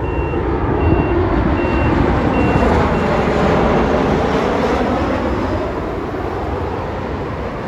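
Jet noise from a Boeing 737 MAX 9's CFM LEAP-1B engines as the airliner arrives, a broad rumble that builds over the first couple of seconds, holds, then eases. Through the first four seconds a vehicle's reversing alarm beeps about once every three-quarters of a second.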